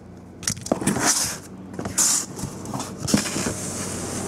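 Cardboard case of card boxes being opened by hand: flaps and tape pulled apart, with sharp cardboard clicks and crinkling, rustling bursts about one and two seconds in.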